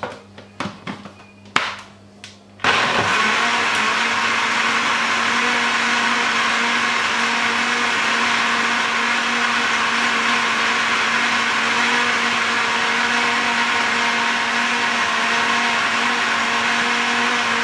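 A few clicks and knocks, then an electric countertop blender starts suddenly about two and a half seconds in. It runs at a steady, even pitch, churning a full jug of liquid peanut punch made of raw peanuts, oats, Guinness and milk.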